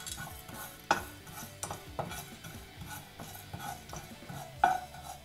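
A wooden spatula scrapes and stirs whole spices and cumin seeds around a dry nonstick kadai, in irregular scrapes and taps. There is no oil, so there is no sizzle: the spices are being dry-roasted. Two sharper knocks against the pan come about a second in and near the end, the last with a brief ring.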